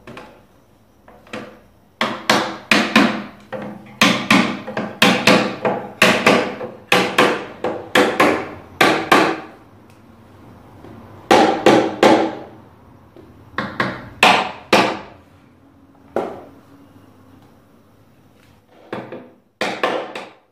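Small hammer driving wooden wedges into the glued spindle joints of a Windsor chair to lock them: runs of sharp wooden taps, about two or three a second, in several bursts with short pauses between.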